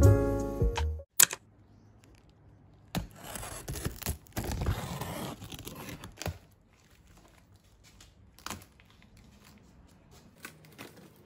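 Clear packing tape being torn and peeled off a cardboard parcel with plastic crinkling, in two noisy stretches around the middle, followed by faint rustling and a few small clicks. Piano music cuts off about a second in.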